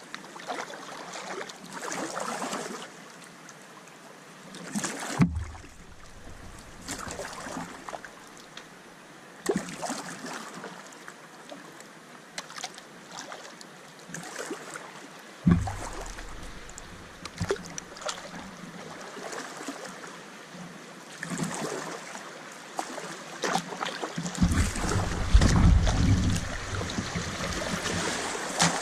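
Kayak paddle dipping and pulling through river water, with repeated small splashes and drips over the gentle flow, and occasional low rumbles, the heaviest near the end.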